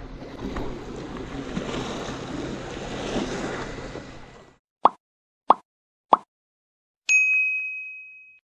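Steady outdoor background noise that cuts out about four and a half seconds in. Then come three quick popping sound effects about two-thirds of a second apart, and a single bright ding that rings and fades: an end-screen prompt animation.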